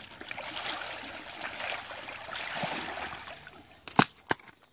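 Water sloshing and splashing as a person wades through shallow lake water. About four seconds in, two or three sharp clicks or knocks cut through, and then it goes quiet.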